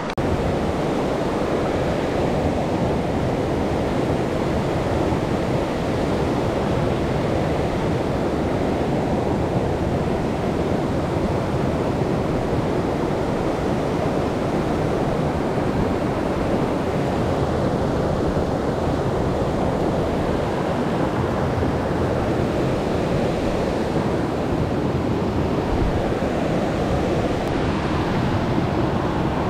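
Steady rush of a small rocky stream running over stones and riffles.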